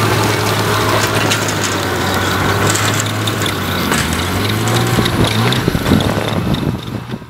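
Snowmobile engine running steadily as it pulls away towing a sled, with scattered clicks and crunches over the engine hum. It fades out near the end.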